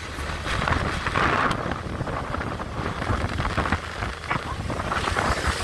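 Wind buffeting a phone microphone on a moving two-wheeler: a continuous rumbling rush of wind and road noise.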